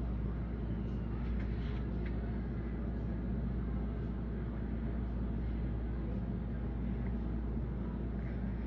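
Steady low rumble of background noise, even in level throughout, with a few faint clicks about a second and a half to two seconds in.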